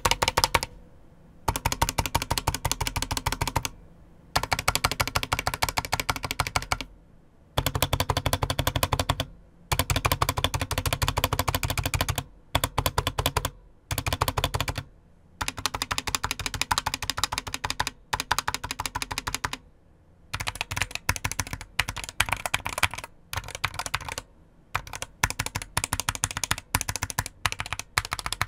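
Keys of a Geek GK61 mechanical keyboard with Gateron optical yellow switches hammered in rapid runs with short pauses between, checking the sound of its lubed Cherry-style stabilized keys.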